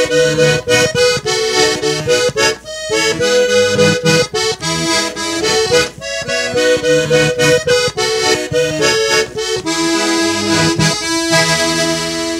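Piano accordion playing an instrumental passage of melody and chords, closing on a held chord near the end.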